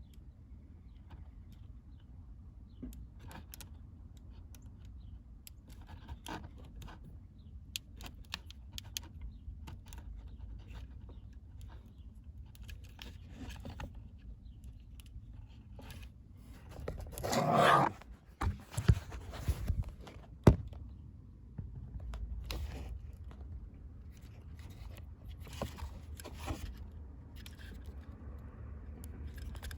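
Hands handling small parts under a car's dashboard: scattered light clicks and scrapes, with a louder scraping rustle lasting about a second, about 17 seconds in, followed by a few sharp clicks.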